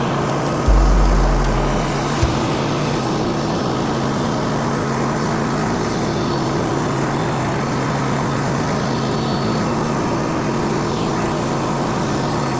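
Sawmill engine running steadily under load as the mill saws through a pine log. A brief deep thump comes about a second in.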